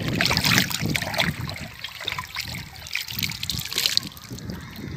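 Irrigation water splashing and trickling as a steel plate is dipped into the flow from the pipe and filled.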